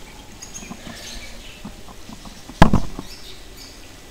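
Faint high chirping of small birds, broken about two and a half seconds in by a single loud knock that dies away within half a second.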